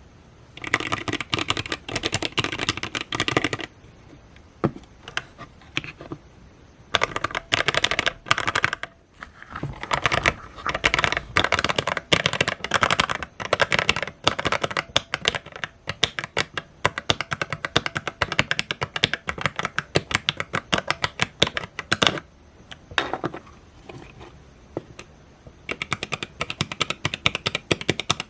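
Keys of a 9% mechanical keyboard being typed on in several runs of rapid clacking, with short pauses between the runs.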